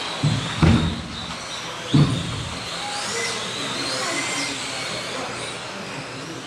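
1/10-scale electric 2WD off-road RC cars racing on an indoor carpet track: a high motor whine that rises and falls as the cars accelerate and back off, with three heavy thumps in the first two seconds.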